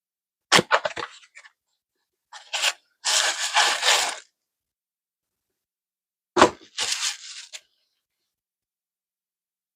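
Packaging being handled and opened. There are two sharp cracks or knocks, about six seconds apart, with a noisy rustling of paper or wrapping lasting about a second in between.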